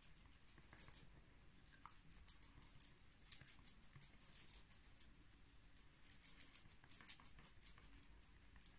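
Faint, soft dabbing of a makeup sponge patting liquid foundation onto the face: a quick, irregular run of light taps.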